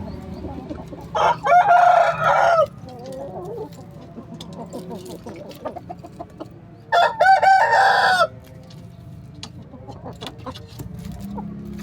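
Rooster crowing twice, each crow about a second and a half long and some five seconds apart, with softer clucking between the crows.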